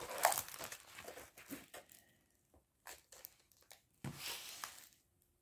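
Plastic-covered diamond painting canvas crinkling and rustling as it is unrolled and handled, busiest in the first two seconds, then a few small ticks and a last rustle about four seconds in.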